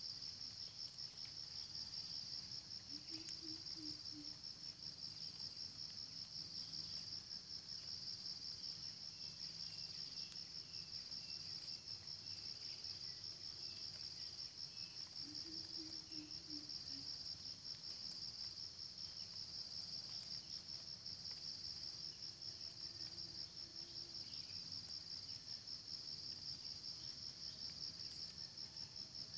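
Continuous high insect trill, rapidly pulsing and unbroken. Twice a faint low call sounds beneath it, a few seconds in and about halfway through.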